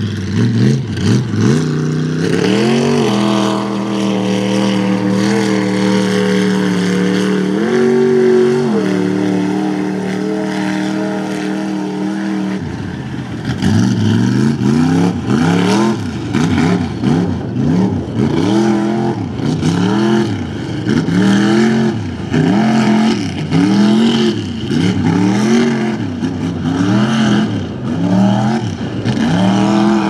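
Big-block Ford V8 in a lifted mud-bogging pickup running wide open through a mud pit. It is held at high revs with a couple of jumps in pitch, then from about halfway the revs surge up and drop again over and over, about once a second.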